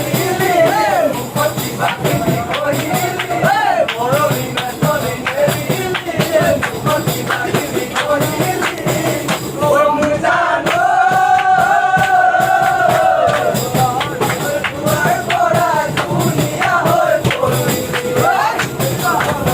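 Music: a sung song over a steady beat of percussion, with one long held note about ten seconds in.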